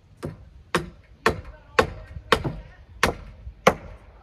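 A hammer striking timber in a steady run of about seven sharp blows, roughly two a second, each with a short ring.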